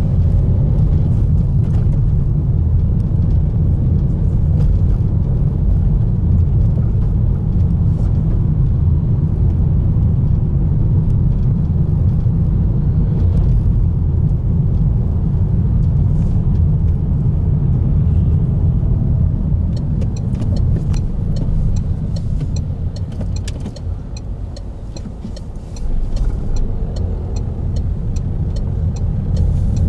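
Car driving through town, heard from inside the cabin: steady low road and engine rumble that eases as the car slows about two-thirds of the way through, then picks up again. Near the end there is a run of light ticking clicks.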